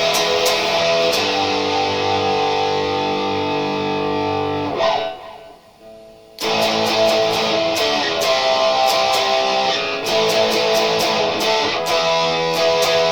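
Harley Benton JA-60 Jazzmaster electric guitar with P90 pickups, played with picked and strummed chords that ring on. About five seconds in the strings are muted and the sound drops away for a second or so, then the playing starts again.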